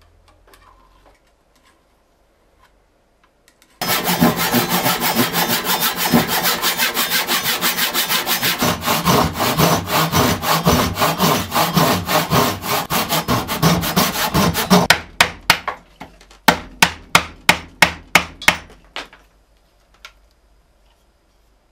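Hand saw cutting across a wooden board. About four seconds in, fast, steady back-and-forth strokes start. Near the end they give way to a few slower, separate strokes before the sawing stops.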